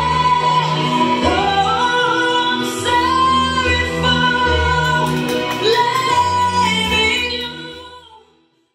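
Slow pop song with a woman singing over sustained low accompaniment, fading out about eight seconds in.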